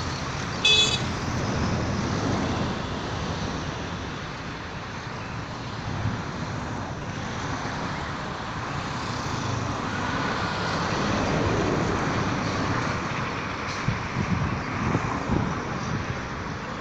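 Road traffic noise: a steady hum of passing vehicles, with a brief loud high-pitched beep about a second in and a few short knocks near the end.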